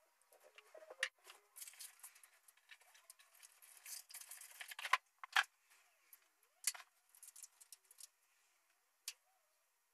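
Light scratching and rustling of pencil and paper at a desk, with scattered sharp clicks and taps; the loudest taps come about a second in and around five seconds in.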